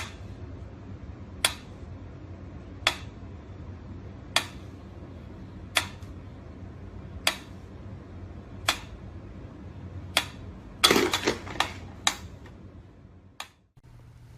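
Sharp clicks or taps repeating evenly about every one and a half seconds over a steady low hum. About eleven seconds in comes a quick flurry of clicks, then a few single ones.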